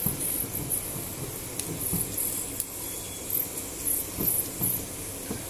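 Silicone spatula spreading a moist chicken filling over a flour tortilla on a wooden board: soft, irregular scraping and squishing strokes, with short bursts of high hiss.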